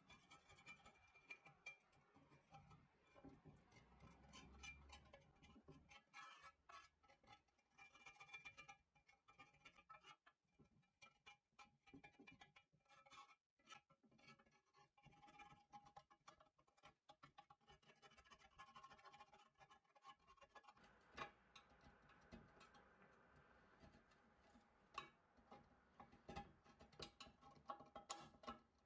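Faint scraping and irregular small clicks of a screwdriver picking rust scale and old debris out of a rusted hibachi firebox tray, with faint music underneath.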